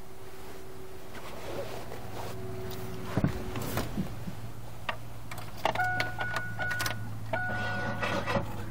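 Inside a Pontiac Sunfire: a steady low hum with a sharp click about three seconds in. From about six seconds a steady electronic warning tone sounds in broken stretches among light clicks.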